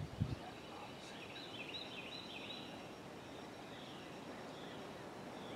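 Outdoor woodland ambience with a songbird singing a quick run of repeated high chirps starting about a second in, then fainter calls later. There is a brief low thump right at the start.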